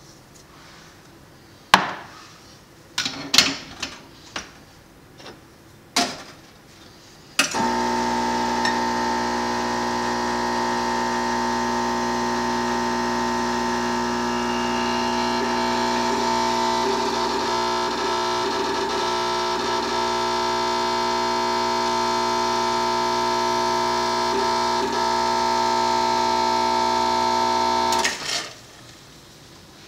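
A few sharp clicks and knocks as the portafilter is locked into the group head of a Quick Mill Andreja Premium espresso machine and a glass is set down. About seven seconds in, the machine's vibratory pump starts a steady hum while a shot is pulled. It runs for about twenty seconds and cuts off near the end.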